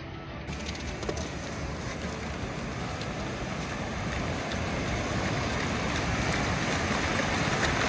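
Ocean surf washing up the beach, with wind on the microphone, a steady rushing noise that grows slowly louder.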